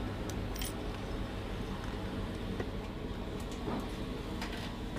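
Motorcycle engine running steadily while riding, with a low hum under road and wind noise and a few light clicks.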